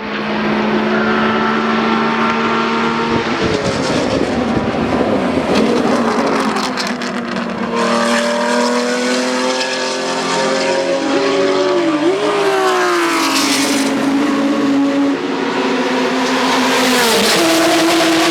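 BMW M1 Procar's straight-six racing engine running loud, holding a steady pitch at first and then rising and falling through revs and gear changes, with a run of sharp crackles about four to seven seconds in.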